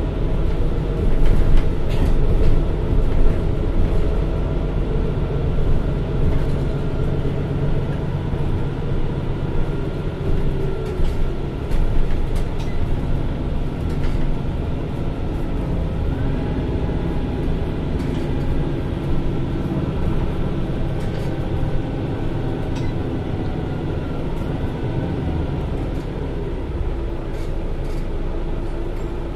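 MAN Lion's City NL323 city bus under way: steady diesel engine and drivetrain hum over a low rumble, with a faint whine that steps up in pitch about halfway through.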